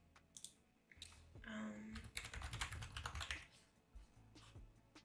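Typing on a computer keyboard: a few scattered keystrokes, then a quick run of key clicks from about two seconds in that dies away after three and a half seconds.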